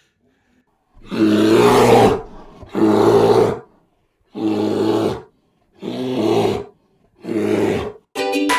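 A bear roaring five times, each roar loud and about a second long with short pauses between. Ukulele music starts at the very end.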